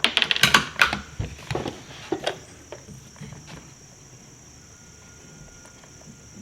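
A quick run of clicks, knocks and rattles from gear being handled, dying away after about three and a half seconds, over a steady high buzz of insects.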